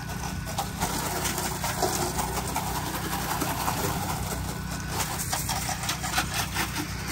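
Pressure washer engine running steadily, under the hiss of a rinse stream spraying from the wand and splashing onto vinyl siding and the porch soffit.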